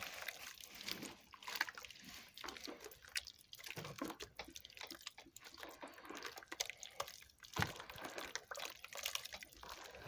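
Bare hands squelching and sloshing through a soupy mix of warm water, sugar, butter, lard and yeast in a large tub, making irregular wet splashes and drips as the sugar and fat are worked in to dissolve.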